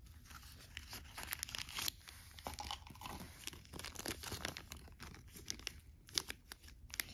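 Small clear plastic bag crinkling and rustling as fingers handle it, in irregular crackles; a small cardboard jewellery box is opened as it begins.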